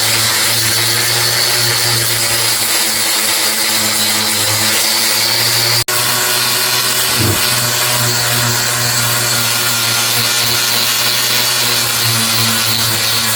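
An electric power tool running steadily, with a humming motor and a hissing abrasive sound as it works the rusted metal. There is a momentary break about six seconds in.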